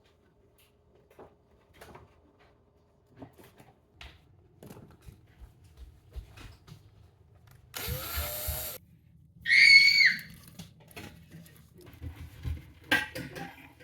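Scattered small knocks and clicks of handling, then, about eight seconds in, a one-second burst of a power drill. A brief high-pitched squeal follows right after it and is the loudest sound.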